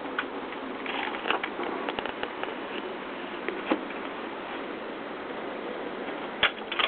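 A dog's claws clicking and scrabbling on a countertop and a plastic stool as it climbs up and down after a bone: scattered light clicks and taps, with a couple of louder knocks about halfway through and near the end, over a steady hiss.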